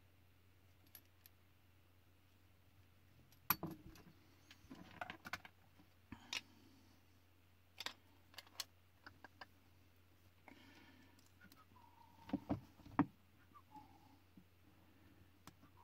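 Small metal and plastic airsoft gun parts clicking and clacking as they are handled and fitted on a workbench, in scattered knocks, loudest about three and a half seconds in and again around twelve to thirteen seconds in, over a low steady hum.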